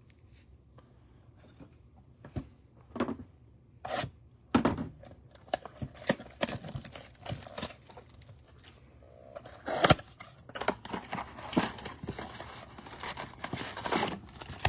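Trading-card packaging being handled: irregular tearing, crinkling and scraping of wrappers and cardboard, with light taps. The loudest burst comes about ten seconds in.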